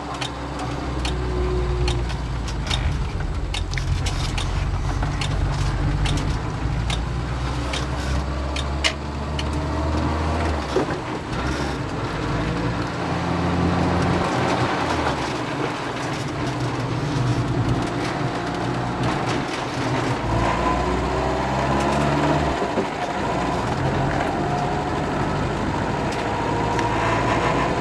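Renault R5's small four-cylinder engine heard from inside the cabin while driving, with steady road noise; the engine note drops and picks up again a couple of times, and a few light ticks and rattles come through. The transmission mount has just been replaced, and the car runs without its former clunking.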